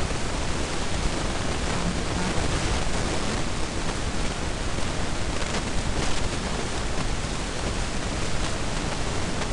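Steady, loud hiss of the recording's background noise, even and unchanging, with no speech over it.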